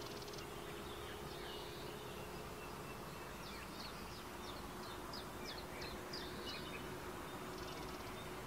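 A steady insect buzz, like a fly or bee, with a quick run of about ten short, high, falling bird notes, about three a second, through the middle.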